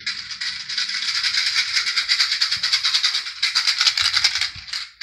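Homemade maraca shaken fast and continuously, its small filling rattling inside.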